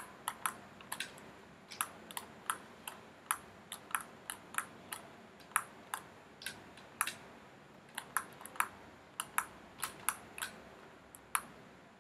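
Computer mouse and keyboard keys clicking in irregular, quick strokes, a few clicks a second.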